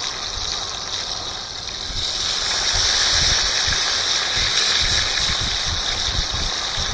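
Pieces of rainbow trout frying in hot oil in a pan on a propane camp stove, a steady sizzle that swells about two seconds in as a second piece goes into the oil.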